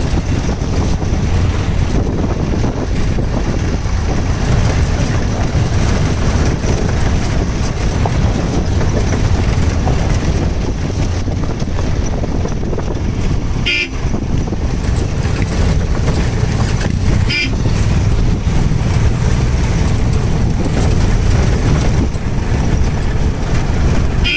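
Steady motorcycle running noise mixed with wind rumble as riders pass on a dirt trail, with a short horn toot twice past the middle and once more at the very end.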